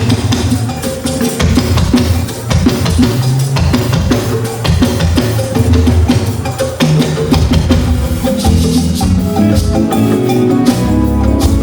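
Music with drums and hand percussion keeping a steady beat over a bass line, with held keyboard-like tones coming in over the last few seconds.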